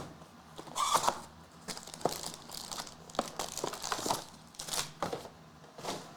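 Trading card packaging being torn open and crinkled by hand: irregular rustling with sharp crackles and rips, the loudest about a second in and again between four and five seconds in.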